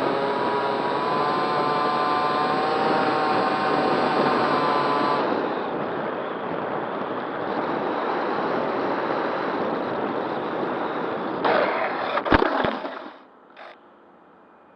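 A SkySurfer RC plane's Racerstar BR2208 brushless motor and propeller whine steadily over rushing air. The motor cuts out about five seconds in, leaving the rush of air as the plane glides. About twelve seconds in there is a short clatter of knocks, typical of the plane touching down, and then only faint hiss.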